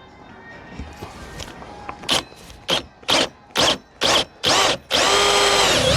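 Power drill cutting the first hole in the car's body for the snorkel. The trigger is pulsed in short bursts about twice a second, then held for about a second near the end.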